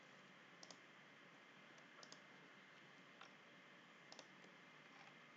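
Faint computer mouse clicks against near silence: five of them, three coming as quick double clicks.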